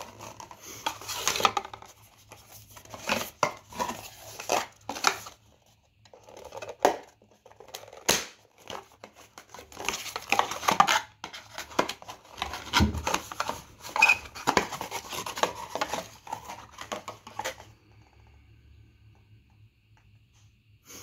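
Cardboard box insert and paper packaging of a new action camera being handled and pulled apart by hand: irregular rustling and scraping with small knocks and a sharp click about eight seconds in. It goes quiet for the last few seconds.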